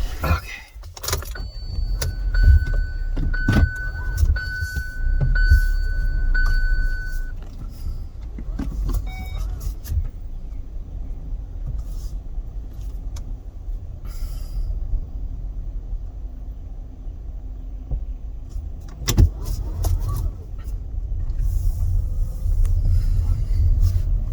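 Car running, a steady low rumble, with a run of high electronic beeps a few seconds in.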